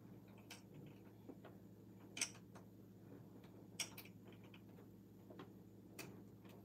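Faint, scattered clicks of a small screwdriver and fingertips on the metal needle plate and screws of a sewing machine as the screws are worked loose; a handful of sharp ticks, the loudest about two seconds in.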